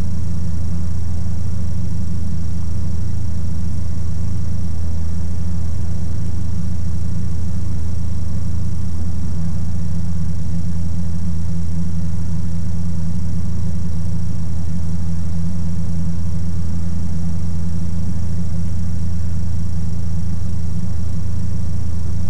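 Ikarus C42 microlight's engine and propeller droning steadily in cruise flight: a deep, even hum that holds the same pitch throughout.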